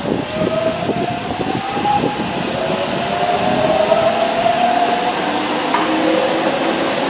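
Kobe Municipal Subway train running, its motors whining with a slowly rising pitch as it picks up speed. Irregular wheel and car clatter in the first two seconds.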